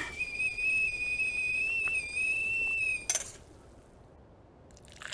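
Stovetop kettle whistling steadily at the boil, one high tone that cuts off about three seconds in with a short clatter.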